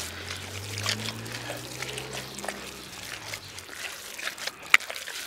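Hand kneading wet minced pork and chicken, just mixed with ice-cold water, in a steel pot: irregular wet squelches and smacks, with one sharp click near the end.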